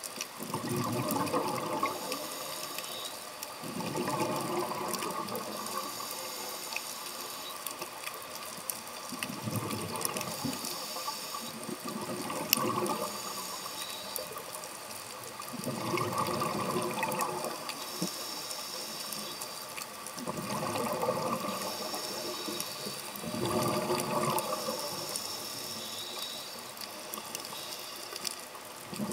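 A scuba diver's regulator underwater: the breath's exhaust bubbles rush out in gurgling surges of one to two seconds every few seconds, with a steady hiss between, heard through the camera's underwater housing.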